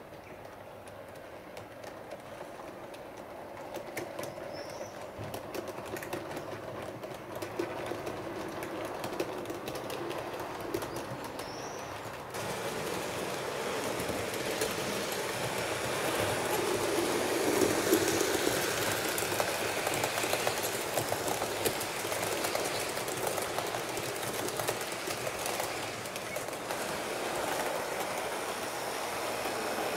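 HO scale model train running along the track, its wheels clicking over the rail joints. The sound grows louder as it nears, stepping up about twelve seconds in and loudest just past the middle.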